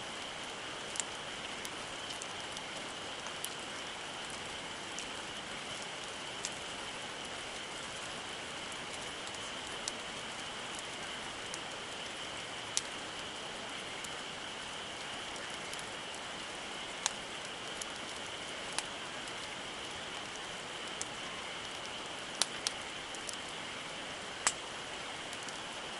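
Wood campfire burning with a steady hiss and sharp crackling pops at irregular intervals.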